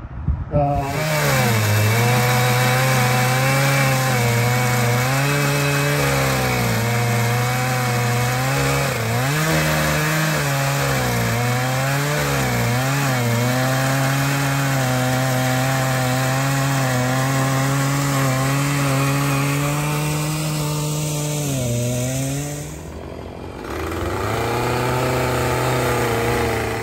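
Large chainsaw on a chainsaw mill ripping a big oak log into slabs, the engine held at steady high revs under load with small dips in pitch. Near the end it drops off briefly, then a saw engine runs again at a slightly lower pitch.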